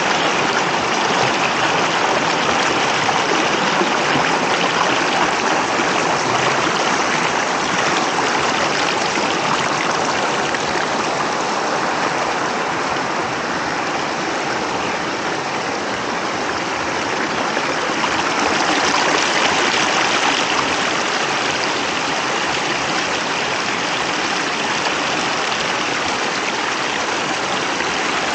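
Shallow creek water rushing and splashing over rock ledges in small cascades: a steady rush of water.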